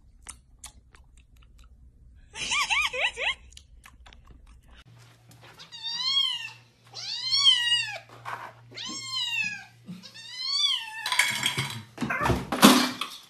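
Kitten meowing five times in a row, each meow rising then falling in pitch. A short warbling call comes earlier, and a loud rushing noise twice near the end.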